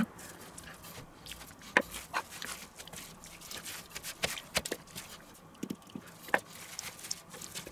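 Quiet food-prep handling sounds: cling film crinkling and scattered light clicks and taps as hands rub a spice rub into a raw pork neck and handle a metal spice shaker can.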